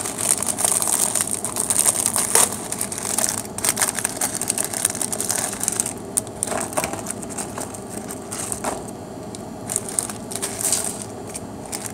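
Plastic wrapper of a MAMA instant-noodle packet crinkling and crackling as it is opened and handled. The crinkling comes in bursts, busiest in the first few seconds and again near the end.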